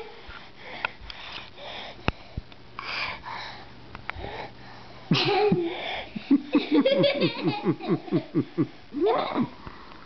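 A toddler's breathing and sniffing close to the microphone, with a few knocks from the camera being handled. From about five seconds in comes a rapid run of short vocal sounds, each falling in pitch, about four a second.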